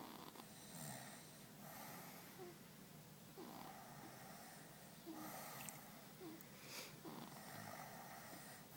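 A sleeping baby snoring softly, with faint rasping breaths about every second and a half to two seconds and a small squeak caught at the start of several of them.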